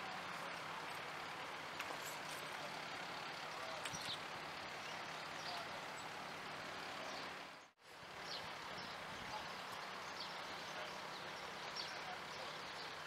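Steady outdoor background noise at a roadside, with a low steady hum and a few faint, short bird chirps. The sound drops out for an instant a little past halfway.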